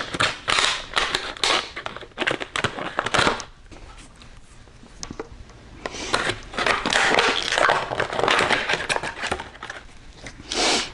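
Stiff plastic blister packaging being cut open with scissors and handled: irregular crackling, crinkling snips and rustles, with a quieter pause in the middle.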